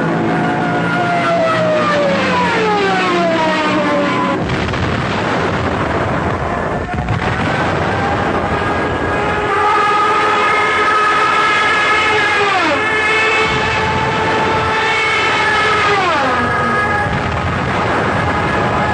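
Junkers Ju 87 Stuka dive bombers: a loud, steady wailing tone that slides down in pitch three times, slowly about a second in and then sharply twice in the second half.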